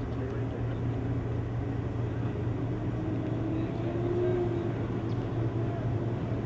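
Steady low outdoor rumble with faint, distant voices.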